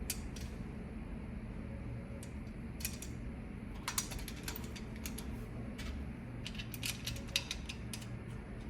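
Scattered light metallic clicks and clinks of a timing chain guide and its bolts being handled and fitted on the engine, bunched in two short flurries, over a steady low hum.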